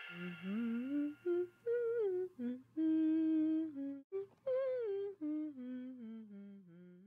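A person humming a short, meandering tune: a string of held and gliding notes with brief breaks, trailing off near the end.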